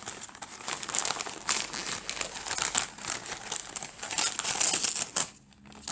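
Gift wrapping paper crinkling and rustling in the hands as a present is unwrapped, in a run of irregular crackles that pauses briefly near the end.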